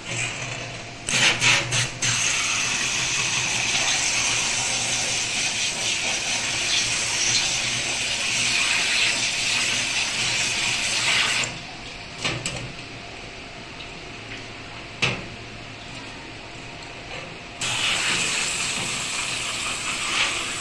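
Cold water spraying from a pull-out kitchen faucet sprayer onto a circuit board in a stainless steel tray, a steady rinse of the dish-soap wash. The spray starts about two seconds in after a few knocks, stops for several seconds with a couple of knocks, and comes on again near the end.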